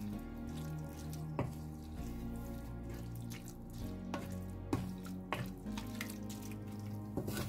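Wooden spoon stirring spaghetti through a creamy sauce in a stainless steel pan, wet squelching with a few sharp knocks of the spoon against the pan. Soft background music with sustained low notes plays underneath.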